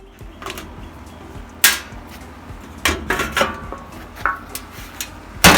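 Metal clanks and clicks as a washing machine's control panel is worked loose, several separate knocks with a loud one about a second and a half in and another near the end.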